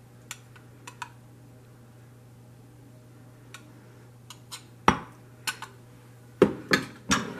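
A metal knife clinking lightly against a glass measuring cup while stirring melted candy wafers, then louder knocks of glass and metal near the end as the cup is set down on the countertop.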